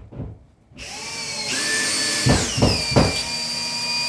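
A power drill drives a screw into a plastic wall plug. Its motor whines steadily, drops in pitch about halfway through, and two sharp knocks sound in the middle. A few light knocks come first, about a second before the motor starts.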